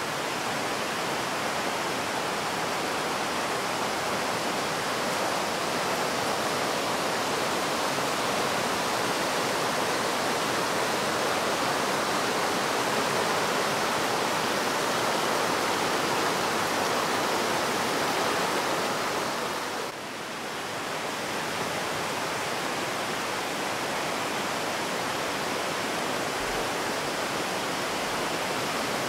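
Breitach mountain river rushing over rocks in white water: a steady, even rush of water noise, briefly dipping in level about twenty seconds in.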